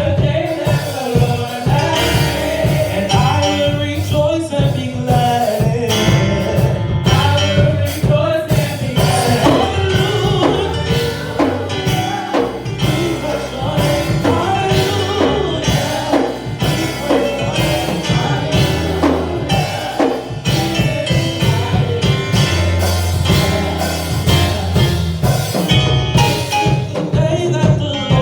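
Live gospel praise music: singing over a band with drum kit and bass in a steady beat.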